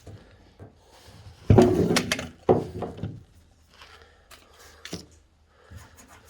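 A heavy thunk about a second and a half in, a second knock a second later, and a sharp click near the end: parts and packaging of a forging press being handled and set down.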